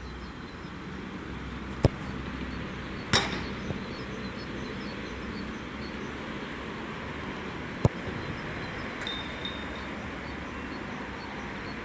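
Football struck hard by a kicker's boot, two sharp thuds about two and eight seconds in, with a ringing knock a little after three seconds, over a steady outdoor hiss.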